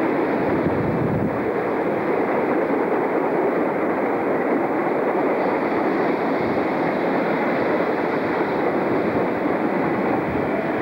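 Electric multiple-unit train running on the track, a steady rumble of wheels on rail that holds level throughout.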